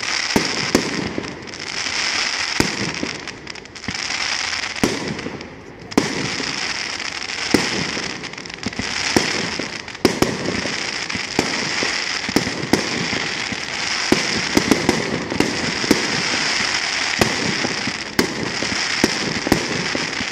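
Fireworks display: aerial shells bursting in a rapid, irregular run of sharp bangs, about one to three a second, over a continuous hiss.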